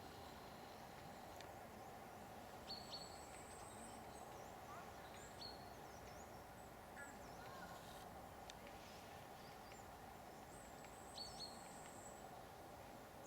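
Faint outdoor ambience: a steady hiss with small birds calling in short high chirps and little whistles. A pair of sharper chirps comes about three seconds in and again near the end.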